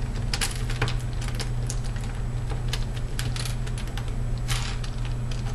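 Small plastic pieces of a 46mm mini 4x4 puzzle cube clicking as they are pulled out of the puzzle and set down on a desk: many light, irregular clicks. A steady low hum lies underneath.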